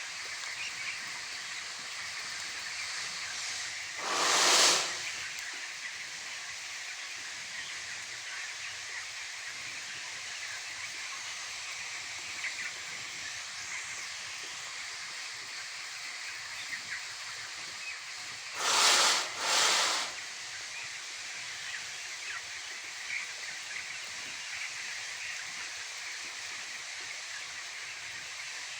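A shed full of young broiler chicks, cheeping continuously over a steady background noise. Three short hissing bursts cut in, one about four seconds in and two close together past the middle.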